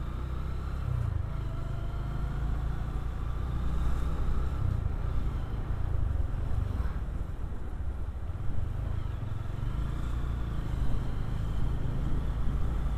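Motorcycle engine running as the bike is ridden slowly along a street: a steady low rumble.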